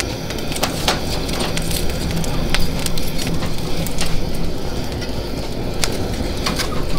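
Wood fire burning high under a rice pot on a grill, crackling with many sharp, irregular pops over a steady low rush of flame.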